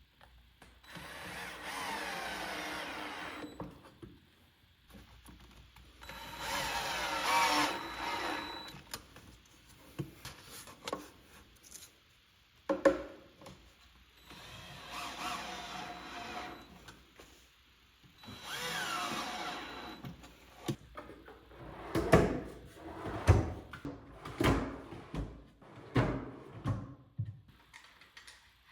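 Power drill-driver driving screws in four short runs of two to three seconds each, the motor's pitch dropping within a run as it loads up. Near the end comes a string of sharp knocks and clicks.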